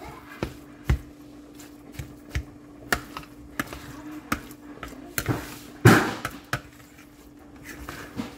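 Kitchen utensils and dishes being handled: irregular light knocks and taps, with a louder clatter about six seconds in, over a steady hum.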